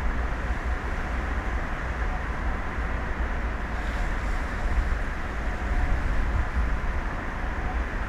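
Steady rumbling noise of wind and sea on an open-air offshore microphone, heaviest in the lows, with a faint steady hum running through it.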